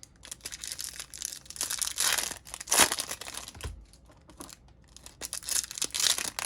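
Trading-card pack wrappers crinkling and tearing as packs are opened, in irregular bursts, loudest about two to three seconds in.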